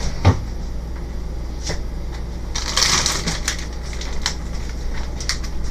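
Handling noises: scattered small clicks and a short crinkling rustle about three seconds in, over a steady low hum.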